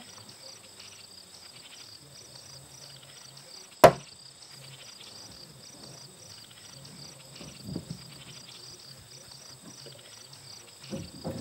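Crickets chirping in a steady, evenly repeating pattern over a low hum, with a single sharp knock about four seconds in.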